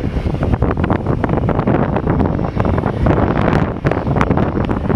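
Wind buffeting the microphone: a loud, gusty rumble with irregular crackles and pops, and no clear engine tone standing out of it.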